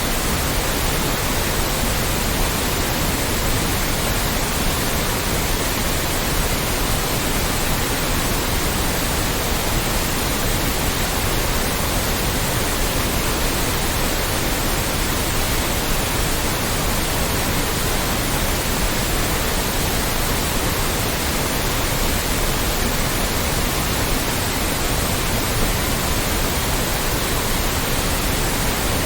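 Loud, steady white noise: an even, unbroken hiss across all pitches, with no change in level.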